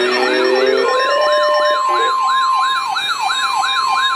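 Several electronic sirens sounding at once, starting suddenly. The main one sweeps down and up about three times a second, and a steady high tone joins it about a second in.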